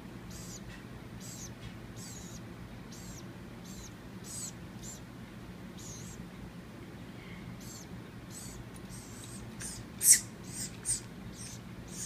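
Baby woodpecker giving a steady run of short, high-pitched calls, about one and a half a second, with a few louder ones near the end.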